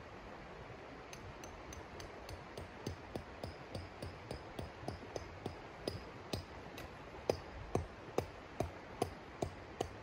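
Tent stake being hammered into frozen ground: a steady run of sharp, ringing metal strikes, about two to three a second, growing louder in the second half.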